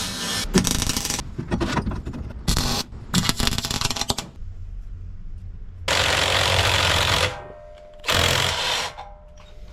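MIG welder tacking steel angle in place: a series of short bursts of crackling arc, each a second or so long, the later ones over a steady hum.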